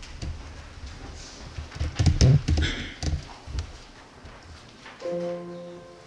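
A few knocks and rustles, the loudest about two seconds in, then a grand piano starts playing held notes about five seconds in.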